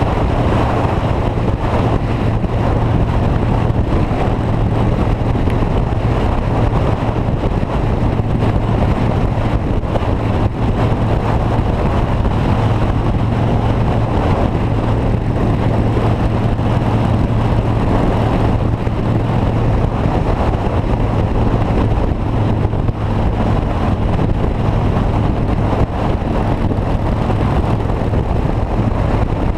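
Steady running noise of a moving motor vehicle with a constant low hum and some wind on the microphone.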